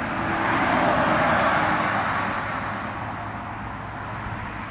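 Aircraft engine noise: a steady rush that swells about a second in and slowly fades over the next few seconds, with a low steady hum underneath.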